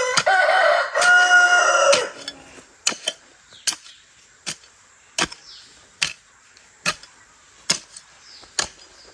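A rooster crowing once over the first two seconds, a loud pitched call in two parts. A series of sharp clicks follows, a little under one a second.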